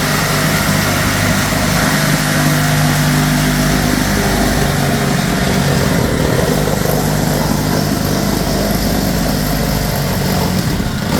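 A motor running steadily at a constant speed, a loud low drone that starts and stops abruptly.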